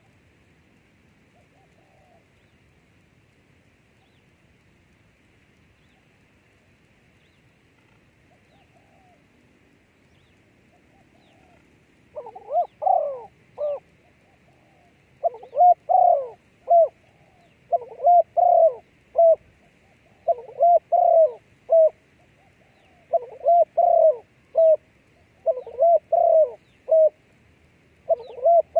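A dove cooing: a few faint single coos at first, then, from about halfway in, loud phrases of several low coos repeated about every two seconds.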